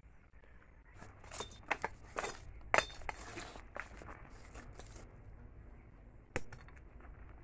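Irregular clinks and knocks of sticks and scrap metal being handled and set down around a small fire pit with a wire grate. The loudest knock comes about three seconds in, and another sharp one near the end.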